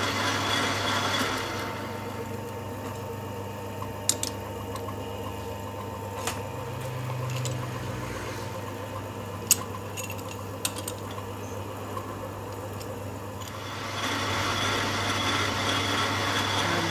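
Metal lathe with the workpiece spinning in its chuck, running down in the first couple of seconds, then a quieter stretch of steady motor hum with a few sharp metallic taps, and the spindle starting up again about three seconds before the end.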